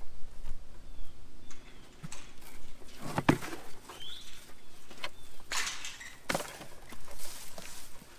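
Hands working through loose potting soil and handling plastic 5-gallon buckets: scattered rustling, scraping and light knocks, with a few brief bursts of soil spilling.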